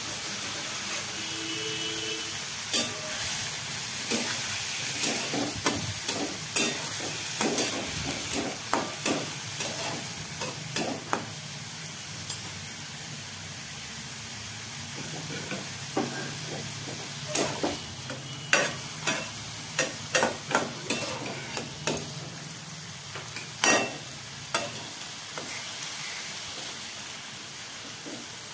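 Diced bottle gourd peel frying in a wok with a steady sizzle, while a metal spatula stirs it, clicking and scraping against the pan in two spells of quick strokes.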